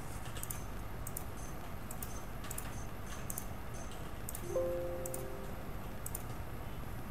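Faint, irregular computer mouse clicks over a steady low hum, with a short electronic chime of two or three steady tones about four and a half seconds in.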